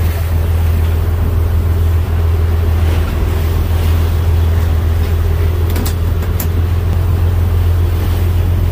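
Fishing boat's engine running steadily with a low drone, under a rush of wake water and wind. A couple of brief sharp clicks come about six seconds in.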